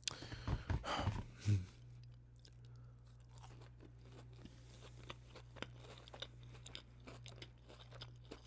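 Close-miked chewing and crunching of crispy fried fast food, with a few louder bites and knocks in the first second and a half, then a run of soft crackling chews. A steady low electrical hum lies underneath.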